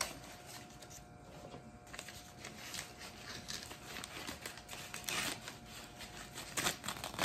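Paper wrapping crinkling and rustling as it is handled and unfolded by hand, with a few louder rustles about five and seven seconds in.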